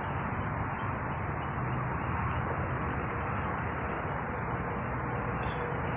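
A small bird chirping, a quick series of about seven short high chirps over the first two and a half seconds, then a few scattered ones. Under it is a steady even rush of background noise.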